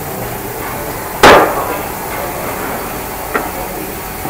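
A single loud, sharp knock about a second in, ringing briefly, then a faint click near the end, over steady workshop background noise.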